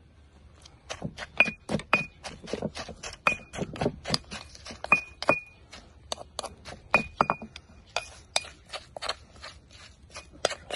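Pestle pounding in a stone mortar with a metal spoon clinking against the stone as the mix is turned. It starts about a second in as a quick run of sharp knocks and clinks, about four a second, some leaving a brief metallic ring.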